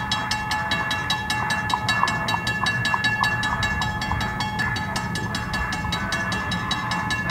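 Grade-crossing warning bell ringing in rapid, even strikes, about five a second, over a low rumble.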